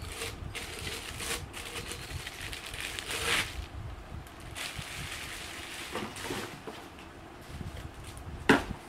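Plastic packaging crinkling and rustling as blender parts are handled and unwrapped, with one sharp knock near the end as a piece is set down.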